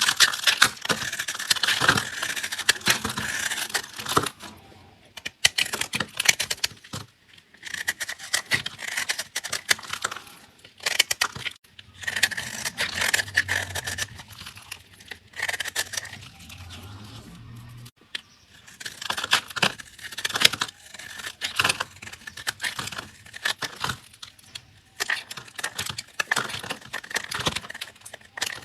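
A blade cutting through crunchy soap: dense crackling and scraping in repeated strokes of a few seconds each, with short pauses between them.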